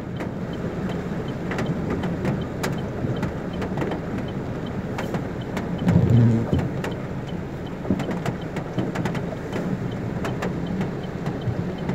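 Inside a car's cabin in heavy rain: the engine running steadily under a constant wash of noise, with raindrops ticking on the roof and glass. A brief louder low sound comes about six seconds in.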